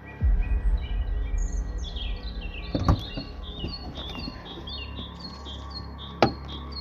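Small birds chirping over a low rumble that starts suddenly just after the start. About three seconds in comes a sharp click of the pickup's door latch as the door is opened, and a second sharp knock about six seconds in.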